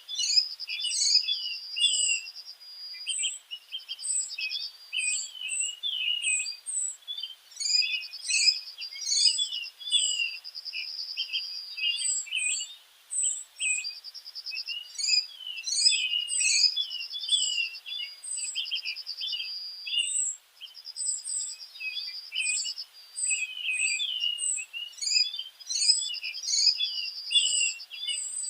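Several small birds chirping and calling over one another without pause, with short high chirps mixed with repeated fast trills.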